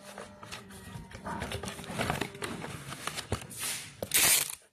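Stiff cardboard label sheet being wrapped and folded around a bundle of paper firework tubes: rustling, scraping and tapping of the card, with a loud hissing rasp of card or tape near the end.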